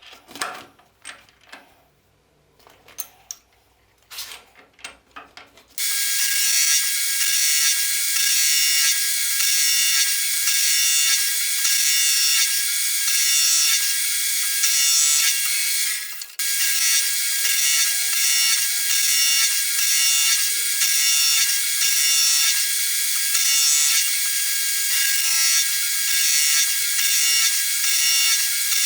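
Scattered clicks and taps, then a machine tool starts suddenly about six seconds in and runs loudly and steadily. It has a pulsing rhythm of roughly one and a half beats a second and breaks off briefly about halfway through.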